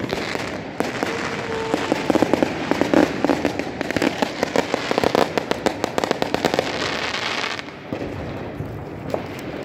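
Fireworks going off: a dense, rapid crackle of many small bangs, like a string of firecrackers, that thins out near the end.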